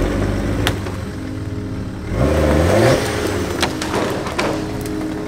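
Nissan Patrol 4x4's engine running at low speed while it crawls over a rough, stony forest track, revving up briefly about two seconds in. Several sharp knocks are heard, from the tyres and chassis going over stones and logs.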